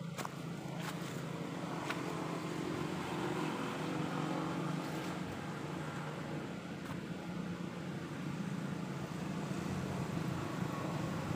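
An engine running steadily, a low hum that grows slowly louder, with a few faint clicks.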